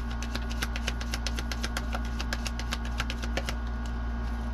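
Tarot cards being shuffled: a quick run of sharp card clicks that stops about three and a half seconds in, over a steady low hum.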